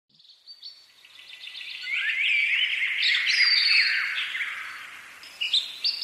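Small birds chirping and trilling, many calls overlapping. The chorus swells in over the first two seconds, is loudest a few seconds in, then fades away.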